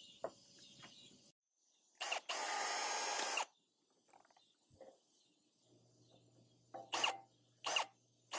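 Cordless drill with a small twist bit: one run of about a second and a half, then a few short trigger blips near the end as it starts drilling screw holes in the grill's side shelf.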